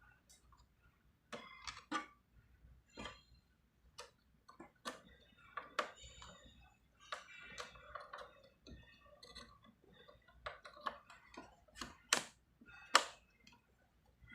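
Irregular small clicks and plastic handling noises as an 8 GB RAM stick is fitted into a desktop motherboard's memory slot, with two louder sharp clicks near the end.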